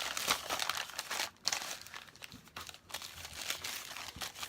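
Packaging crinkling and rustling in the hands as a package is handled and opened, in irregular crackles with one louder crackle about a second and a half in.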